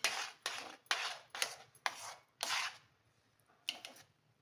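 Slotted metal spoon scraping and slapping through thick semolina kesari in a stainless steel pot, about two strokes a second, with a short pause and one more scrape near the end: the lumps that form after the sugar goes in are being rubbed out and stirred smooth.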